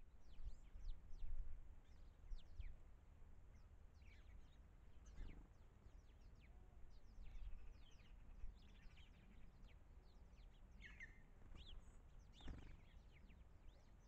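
Small birds chirping and calling faintly: many short, quick high notes that drop in pitch, scattered throughout, with a few stronger calls near the end, over a low steady rumble.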